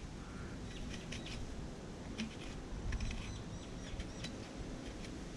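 Knife scraping and tapping at a tough coconut: scattered faint clicks and scrapes, with a few short high chirps in the background.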